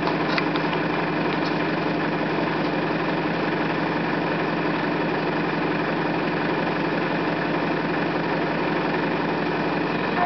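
A 4x4's engine idling steadily close by, an even drone that holds the same pitch and level throughout.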